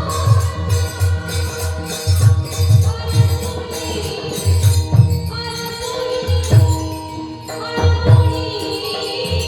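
Devotional Marathi abhang sung by a woman, with deep drum strokes and jingling cymbal-like percussion keeping a steady beat.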